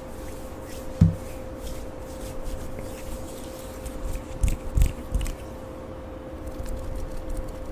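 Lotion squished and rubbed close to the microphone, with light sticky clicks, a soft knock about a second in and a few soft thumps in the middle, over a faint steady hum.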